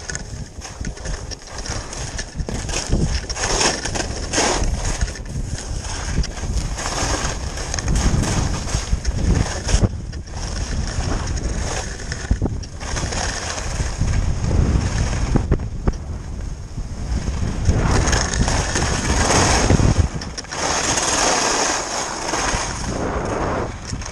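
Skis sliding and scraping over firm, wind-packed snow with wind buffeting the microphone; the hiss swells and eases in waves as the skier turns.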